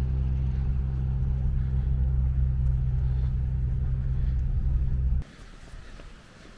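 A steady low engine-like hum with several pitched layers, cutting off abruptly about five seconds in and leaving only faint outdoor background noise.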